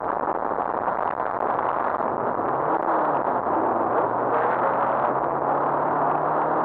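Rally car heard from inside the cabin while driving at speed: steady road and engine noise, with the engine note climbing slowly in the second half as the car accelerates.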